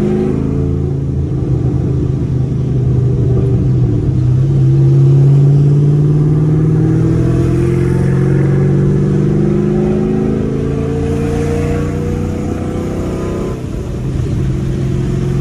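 Cammed 6.2-litre LS3 V8 of a 2011 Chevrolet Camaro SS, heard from inside the cabin as the car accelerates. The engine note rises slowly over several seconds, with a short dip in level near the end.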